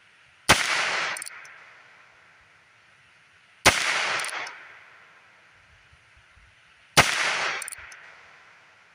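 Three shots from a Heritage Rough Rider .22 single-action revolver loaded with 40-grain lead round-nose rounds, about three seconds apart. Each shot trails off in an echo lasting about a second.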